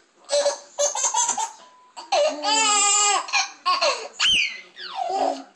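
Babies laughing hysterically in bursts: a long wavering belly laugh in the middle, then a high squeal that climbs and slides back down near the end.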